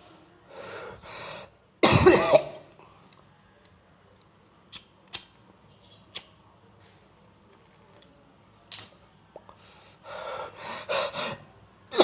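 A man coughing in fits after inhaling smoke from a cigarette dipped in balm: one loud cough about two seconds in, then a quick run of several coughs near the end. A few short clicks fall in the quiet stretch between.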